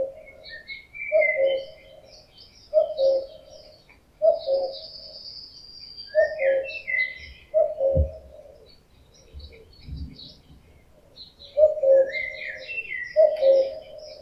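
Male common cuckoo giving its breeding-season "cu-koo" call, a falling two-note call repeated about every second and a half, with a break of a few seconds after about eight seconds. Smaller songbirds twitter higher up in the background.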